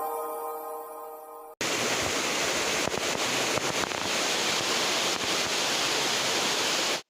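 Steady rushing of a waterfall, starting abruptly about a second and a half in and cutting off suddenly just before the end; soft background music fades out before it.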